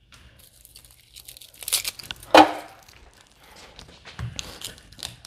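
Papery garlic skin crinkling and tearing as a clove is broken off the head, with one sharp knock about two and a half seconds in and a few dull thuds on the cutting board near the end.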